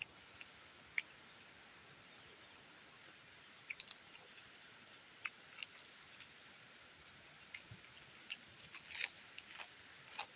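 Someone eating noodle soup: faint, scattered chewing and mouth clicks, with a cluster about four seconds in and a denser run near the end.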